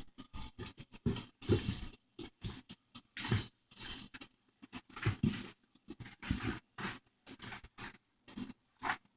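Objects being handled and moved around on a surface: irregular scrapes, rustles and light knocks.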